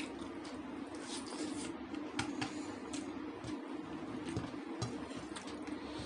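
Close-miked eating sounds: soft, wet chewing of butter naan dipped in paneer gravy, with scattered mouth clicks and smacks over a steady low hum.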